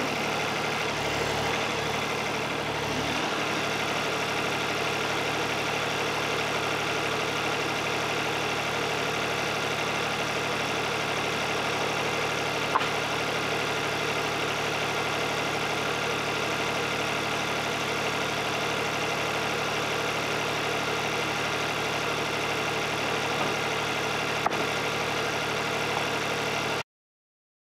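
Wood-Mizer LT50 Wide portable sawmill engine running steadily, with two sharp clicks partway through; the sound cuts off abruptly near the end.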